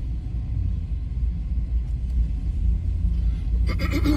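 Steady low rumble of a car driving, heard from inside its cabin, with a brief sound falling in pitch near the end.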